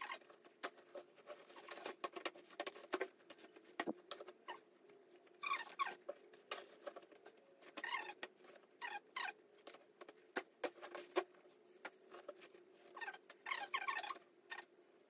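Handling clothes inside a metal trunk: soft cloth rustling with scattered light clicks and knocks as things brush and tap against the trunk.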